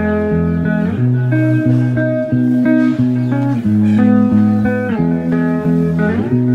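Instrumental background music led by guitar, with sustained notes changing about once a second and a few notes sliding in pitch near the end.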